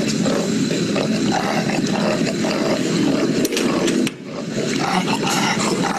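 British bulldog breathing loudly with harsh, rattling stertor, with a short break between breaths about four seconds in. The noise is air reverberating around the soft palate, the sign of an obstructed brachycephalic airway in a dog that cannot breathe properly even at rest.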